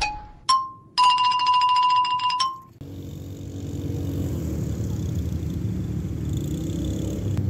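An intro jingle's electronic chime: two bright pings, then a fluttering, bell-like ringing tone held about a second and a half that cuts off. After that comes steady outdoor noise with the low hum of a quad bike engine running.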